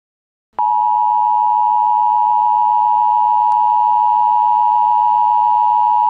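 Emergency Alert System attention tone: one steady, unbroken tone that starts abruptly about half a second in, after silence.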